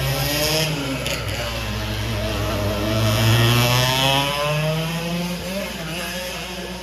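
Racing kart's engine running on the track, its pitch rising and falling with the revs, loudest about three seconds in and fading away near the end.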